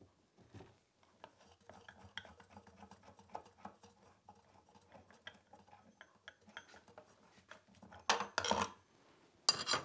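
Light clicks, taps and metallic clinks of a Super Jolly chainsaw grinder's wheel cover and wheel being taken off by hand for a wheel change, with louder clattering about eight seconds in and again near the end.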